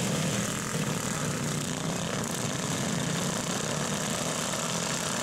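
Several racing garden tractors with their small engines running together in a steady drone.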